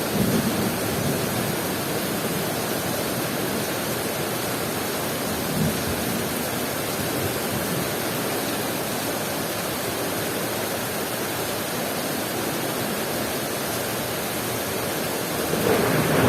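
Heavy rain falling steadily as an even hiss. Near the end a low rumble of thunder starts to build.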